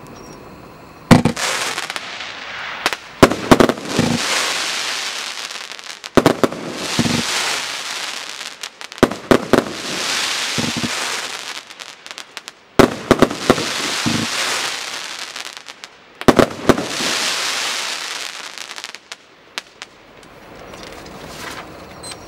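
Consumer firework battery going off: about six volleys of sharp bangs, roughly every three seconds, each trailing off over a couple of seconds. It dies away about three-quarters of the way through, leaving a few small pops near the end.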